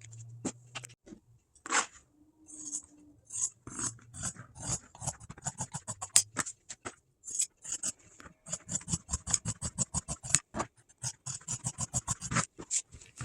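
Scissors cutting through upholstery material, a long run of quick snips that come several a second after a few slower cuts at the start.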